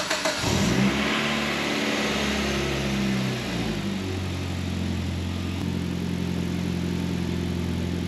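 Mitsubishi Evo X's turbocharged 4B11 four-cylinder starting on its first start-up after the block-crack weld and rebuild. The starter cranks briefly, the engine catches about half a second in and flares up in revs, then settles to a steady idle about four seconds in. It runs with the downpipe off, so exhaust leaves the turbo with no downpipe fitted.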